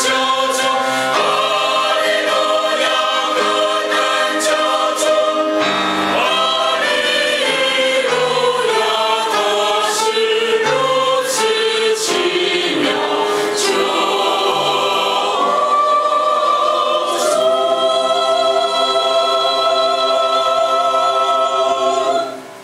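Mixed church choir singing a hymn, closing on a long held final chord that stops about 22 seconds in.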